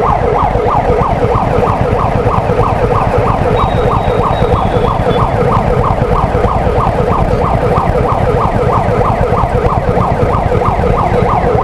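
Emergency-vehicle siren wailing in a fast yelp, its pitch cycling up and down about four times a second without a break, over a steady low rumble of idling engines.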